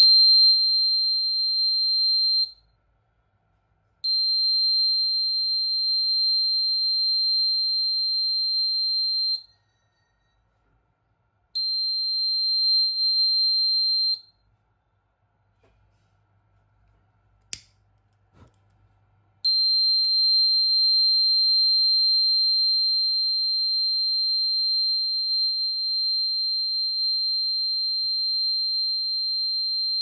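Piezo buzzer of a DIY gas and smoke detector sounding a steady high-pitched tone in four long spells, the last starting about two-thirds of the way through and running on. There is a single sharp click during the gap before the last spell. The buzzer is the detector's alarm going off.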